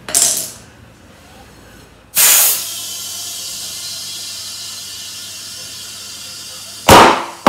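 Shop compressed-air hose inflating a newly mounted scooter tyre through its valve: a loud blast of air about two seconds in, then a steady hiss of air flowing in, and another loud burst of air near the end.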